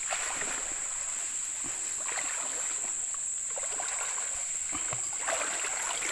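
Water sloshing and splashing irregularly as people wade through a flooded swamp. A steady high-pitched insect drone runs underneath.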